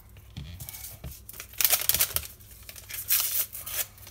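A paper sachet of baking powder being torn open and crinkled, in two rustling bursts, the louder about one and a half seconds in and another about three seconds in.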